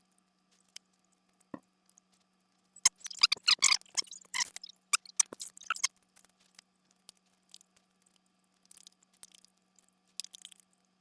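Utensil scraping and clicking against a bowl of rice and tuna, in a dense flurry about three seconds in, then a few scattered clicks.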